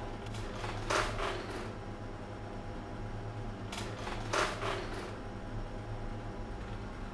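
A steady low hum, with short clusters of rough crackling noise about a second in and again about four and a half seconds in.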